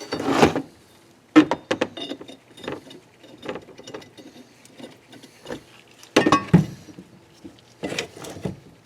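Small metal parts clinking and scraping as valves are fitted by hand into a Nissan KA24DE cylinder head: a run of sharp clicks about a second and a half in, with bursts of handling noise at the start, around six seconds and near the end.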